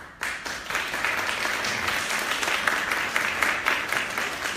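Audience applauding: many hands clapping together, starting suddenly just after the beginning and staying loud throughout.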